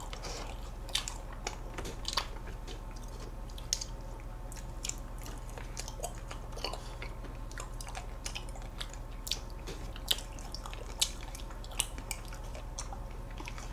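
Close-miked eating of ice cream: soft mouth and chewing sounds, with scattered small clicks and taps of plastic spoons scraping paper ice cream cups.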